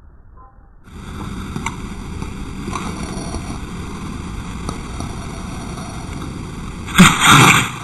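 A dog sneezing once, a short sudden burst about seven seconds in, over steady wind noise on the microphone.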